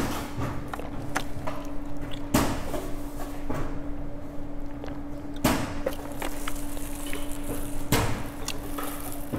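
Close-miked sips of sikhye through a plastic straw, with four short sharp knocks or clicks a few seconds apart over a steady low hum.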